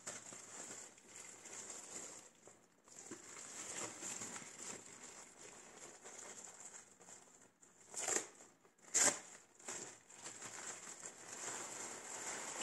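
Thin clear plastic wrapping crinkling and rustling as hands handle it and pull it off a leather bag, with two sharp, louder noises about a second apart roughly two-thirds of the way through.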